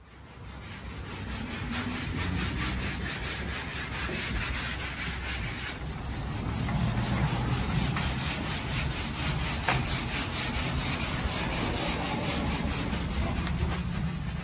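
Hand-sanding a varnished wooden boat deck with a sanding pad: a steady rasping of rapid back-and-forth strokes that fades in at the start. This is the light scuff-sanding of dried varnish between coats.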